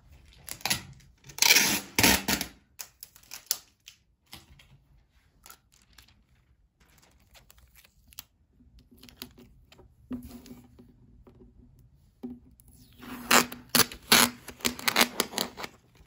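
Glossy plastic sheet and old book pages crinkling and rustling as they are handled, in two loud spells, near the start and again near the end, with lighter rustles between.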